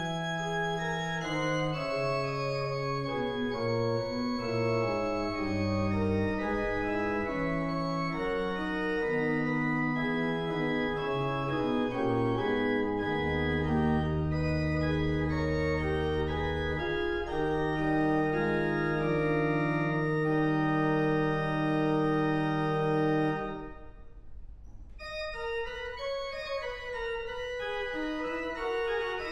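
Organ music: slow chords in several held parts over a low sustained bass note. The phrase ends and stops about three-quarters of the way through, and after a short gap a softer passage begins.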